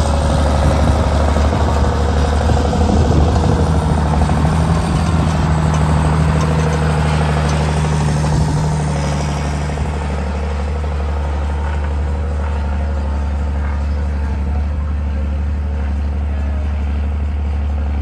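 Tractor engine running steadily under load while pulling a plough. About ten seconds in it eases off and gets a little quieter.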